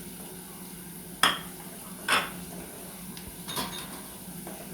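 A cooking spoon clinking against the frying pan three times, about a second or so apart, while stirring the masala.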